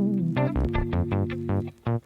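Background music: an instrumental track with plucked guitar and bass notes over a steady beat, with a brief break near the end.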